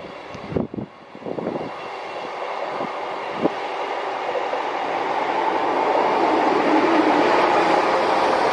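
Northern diesel multiple unit approaching along the track and passing close by. The rumble of its engine and wheels on the rails grows steadily louder and is loudest near the end.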